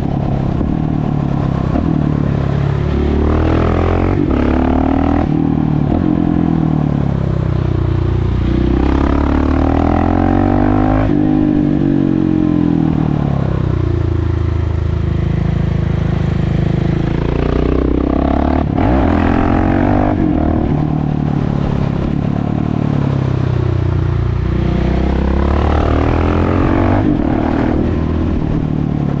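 KTM 690 SMC R's single-cylinder four-stroke engine, its exhaust open with the dB-killer removed, heard onboard while riding: the engine note rises and falls again and again as the bike accelerates through the gears and slows.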